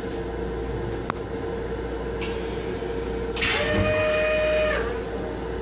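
Stainless steel toilet on a Metro-North M7 railcar flushing: a click about a second in, then a loud spray of rinse water into the bowl with a steady whine for about a second and a half, which cuts off. The railcar's steady hum runs underneath throughout.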